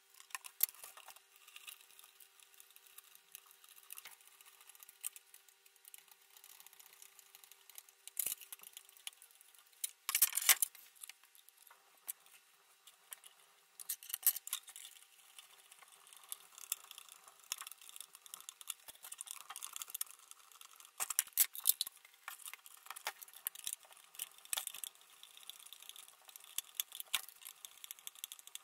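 Small metal hardware being handled and fitted on a plastic bucket lid: scattered clicks, taps and rattles as machine screws, flat washers and lock nuts go through a bracket and are tightened with a screwdriver.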